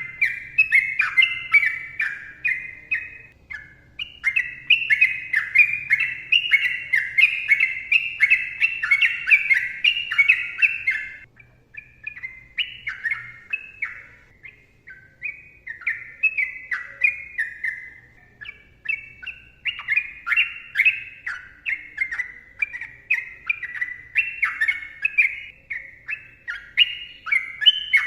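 Yellow-vented bulbul (trucukan) singing a long rapid run of short, bubbling whistled notes, easing off for several seconds in the middle and then picking up again.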